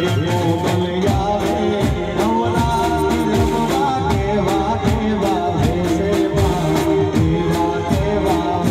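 Live Gujarati garba music played loud through a PA system: an electronic keyboard melody over a steady drum beat, with singing.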